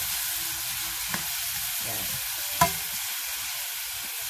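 Vegetables sizzling in a hot oiled wok while being stir-fried, with a utensil scraping and knocking against the pan; one sharp clack about two and a half seconds in is the loudest sound.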